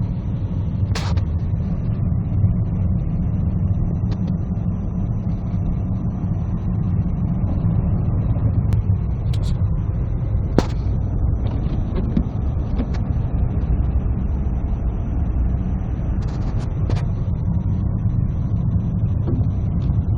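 A car driving on a snowy road, heard from inside the cabin: a steady low rumble of engine and tyre noise, with a few sharp clicks and knocks now and then.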